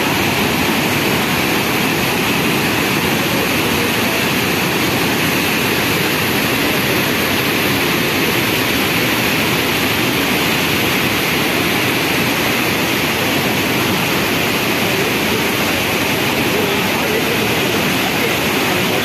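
A large river in full flood pouring over rock ledges as a waterfall and rapids: a loud, steady rush of water that does not let up.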